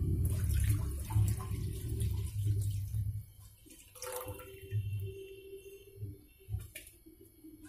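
Milk pouring in a thick stream from a metal pot into a non-stick frying pan, splashing as the pan fills. The pour is loudest for the first three seconds and then thins and fades, with a faint click near the end.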